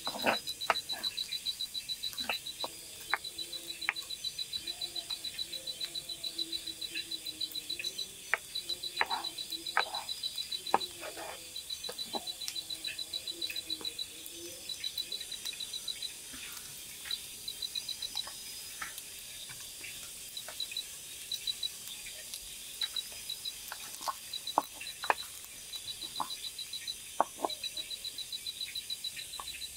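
Cooking utensils clicking, knocking and scraping against a pot and plate, in scattered strokes. Behind them, a night chorus trills high and fast, in runs of a second or two, with lower croaks in the first third.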